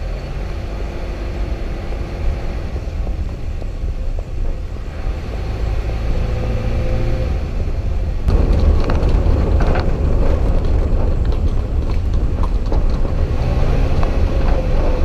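Wind rumbling on the microphone of a camera moving fast along a dirt road, growing louder and rougher about eight seconds in.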